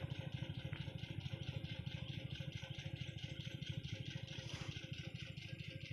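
An engine idling steadily, its even beat at about a dozen pulses a second.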